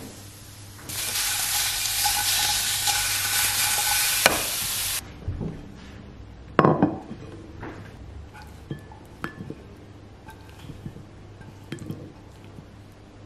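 Halved cherry tomatoes sizzling in oil in a frying pan for about four seconds, cutting off suddenly. Then a ceramic plate is set down on the counter with a clunk, followed by light taps and clinks as the tomatoes are tipped and scraped out of the pan onto the plate with a silicone spatula.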